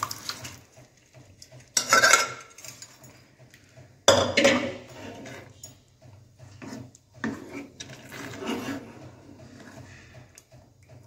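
A steel spoon scraping and clanking against metal cookware as boiled vegetables are scraped out of a pressure cooker into a kadai and stirred into thick bhaji. There are two loud scrapes about two and four seconds in, followed by softer, uneven stirring.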